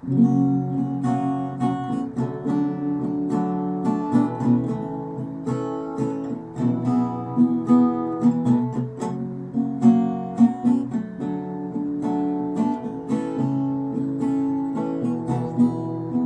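Acoustic guitar strumming chords, the instrumental intro of a song.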